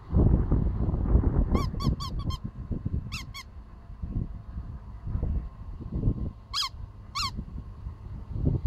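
Rubber chicken squeaky dog toy squeaking in short, high honks as it is squeezed. There are four quick squeaks about a second and a half in, two more near three seconds, and two longer ones near seven seconds, over low rustling and thumps of handling.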